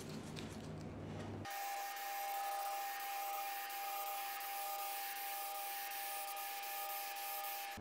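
Aerosol can of spray adhesive hissing steadily as glue is sprayed onto carpet lining, starting abruptly about a second and a half in.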